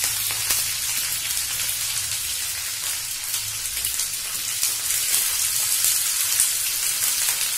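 Chopped onion sizzling and crackling in hot mustard oil in a kadai, with more onion going into the pan about halfway through.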